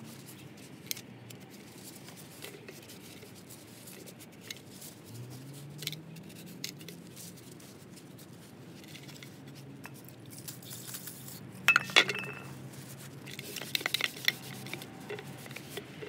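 A rag rubbing and wiping over a small-engine gas tank, with soft handling noise and scattered light clicks. About twelve seconds in there are a couple of sharp clacks, the loudest sounds here, as the metal tank is handled on the concrete, followed by a few lighter knocks.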